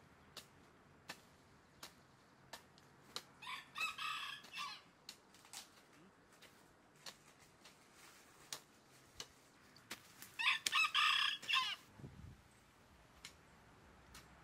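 A rooster crows twice, each crow over a second long and several seconds apart, the loudest sounds here. Between and around them a hoe chops into soil in a steady rhythm of short sharp strikes, about one every 0.7 seconds.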